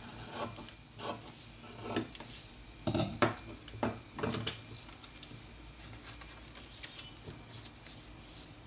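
Paper pattern pieces being handled and stuck down on a work surface: several light knocks and rustles in the first half, then only faint small ticks.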